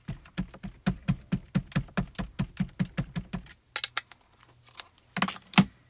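Small VersaMark ink pad tapped rapidly and repeatedly onto a clear photopolymer stamp, about four or five light taps a second for some three seconds, inking the stamp with VersaMark first. A few more clicks follow, the two loudest near the end.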